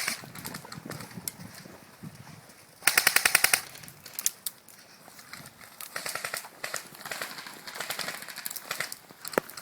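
Airsoft guns firing full-auto bursts, a rapid rattle of shots about fifteen a second. The loudest burst comes about three seconds in and lasts under a second, followed by quieter bursts further off and a single sharp shot near the end.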